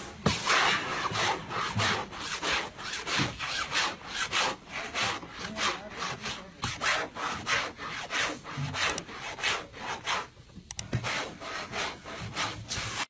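A flat wooden board scraped hard back and forth across denim jeans in a rapid run of rasping strokes, about three a second, with a brief pause near the end. The abrasion is wearing the fabric through to make distressed, ripped jeans.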